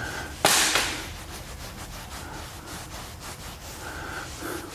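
Microfibre towel wiping cleaner residue off a leather car seat: one loud swipe about half a second in, then quieter steady rubbing.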